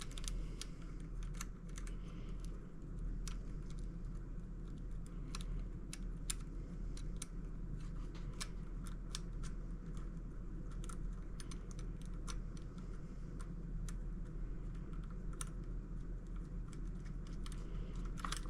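Scattered, irregular light clicks and taps of small metal hardware and hand tools being handled, over a steady low hum.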